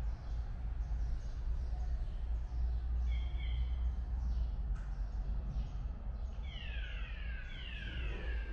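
Steady low rumble of a cable car cabin riding uphill. About three seconds in come two short high chirps, and near the end a run of three high whistles that fall in pitch.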